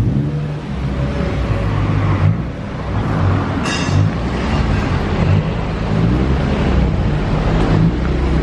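Honda Brio's exhaust running through an aftermarket bass-tuned NDK DK-03v3 muffler, the engine's note rising and falling as it is revved. A brief high-pitched sound comes about three and a half seconds in.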